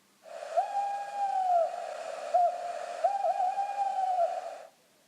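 Owl hooting: one long hoot, a brief short one, then a long wavering hoot.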